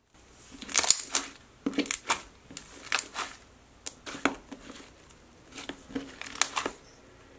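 Hands poking and squeezing a stretchy metallic slime, giving irregular clicky pops and squelches, roughly two a second.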